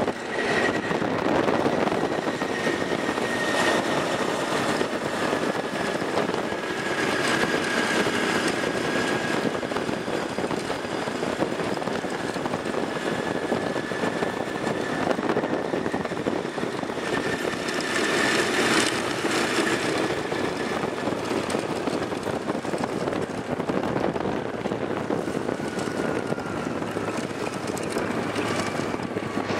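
ATV engine running while the quad is ridden along a dirt trail, with a thin whine that drifts slowly in pitch and a few louder surges.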